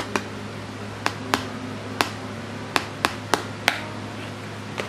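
A plastic Snappy Tray, its nozzle set in the mouth of a small glass glitter jar, tapped to knock the glitter through: about nine sharp, irregular taps.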